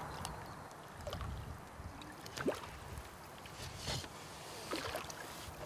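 Water splashing and sloshing as a hooked mirror carp thrashes at the surface and is drawn into a landing net, with several sharper splashes scattered through.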